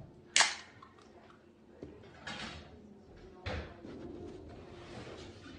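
A plastic drink bottle being handled at a desk: a sharp plastic crack about half a second in, a brief rustle about two seconds in, and a thud as it is set down about three and a half seconds in. A faint room background lies between them.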